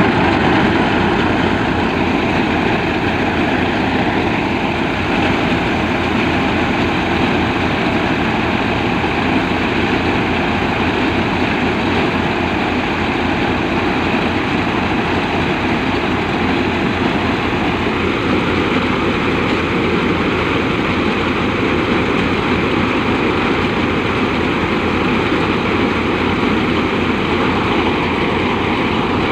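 Eicher tractor's diesel engine running steadily, driving a tractor-mounted mini harvester whose unloading auger is discharging threshed grain. The machine noise is continuous and even, with a slight shift in tone about two-thirds of the way through.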